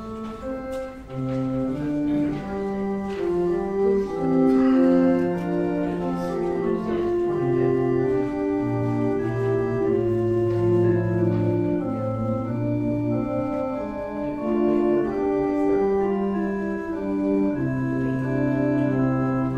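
Organ playing a slow piece in long-held chords, the music that opens the worship.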